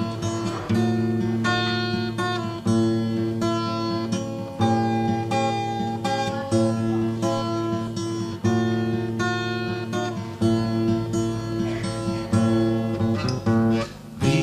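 Acoustic guitar strumming chords in an instrumental passage of a song, between sung verses.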